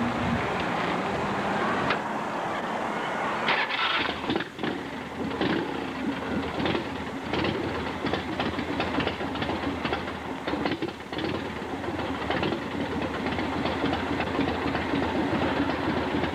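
Harley-Davidson 1340 cc V-twin motorcycle engine running, with an uneven pulsing beat that grows more marked about three and a half seconds in.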